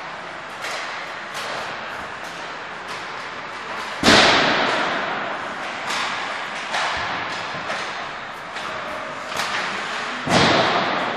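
Ice hockey sticks hitting pucks and pucks banging into the rink boards and glass, a scattered run of sharp hits that echo through the large ice arena. The two loudest bangs come about four seconds in and near the end.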